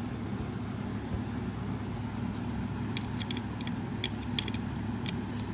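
Scattered light clicks and taps of a screwdriver and small parts being worked during the speaker's disassembly, over a steady low background hum.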